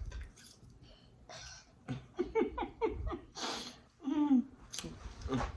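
A woman laughing in short choppy bursts and drawing a hissing breath, reacting to the burn of spicy food.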